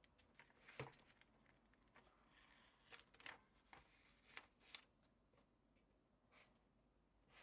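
Faint handling of paper and masking tape: a few soft clicks and short rustles, the loudest about a second in, with a small cluster a little after the middle, over near silence.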